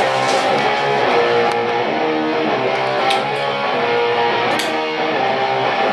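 Loud electric guitar music with strummed chords.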